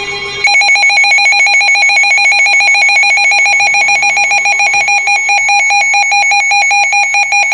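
Emergency Alert System alert tone: a loud electronic tone with a fast flutter, starting abruptly about half a second in and sounding the alert ahead of a severe thunderstorm warning message.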